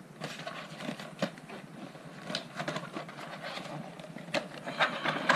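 The stiff white folded panel of a mini photo studio light box being handled and moved about: irregular rustling and scraping, with a few sharp clicks.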